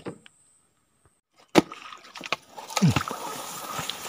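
Almost silent for the first second and a half, then a knock and a small boat moving through shallow swamp water: water sloshing and gurgling around the hull, knocks against it, and grass scraping along its side.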